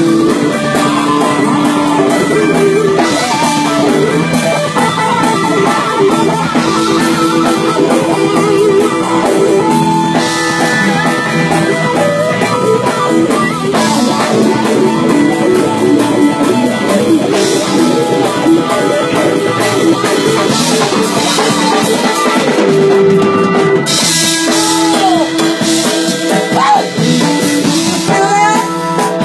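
Live rock-and-blues band playing: electric guitar over a drum kit, with cymbal crashes every few seconds.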